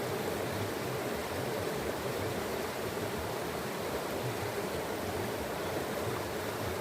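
Running water, a steady unbroken wash of noise that does not rise or fall.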